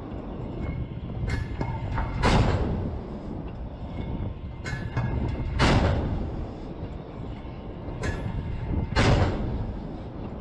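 A destroyer's 5-inch deck gun firing three rounds about three and a half seconds apart. Each is a heavy boom that trails off over about a second, over steady wind rumble.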